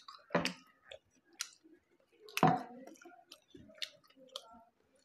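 People eating steamed momo dumplings and drinking water: quiet chewing and sipping, broken by scattered short clicks and knocks. The loudest knocks come about half a second and two and a half seconds in.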